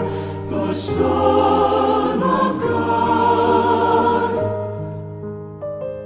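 A choir singing a sacred Christmas anthem with keyboard accompaniment. The voices drop away about two-thirds of the way through, leaving held keyboard chords.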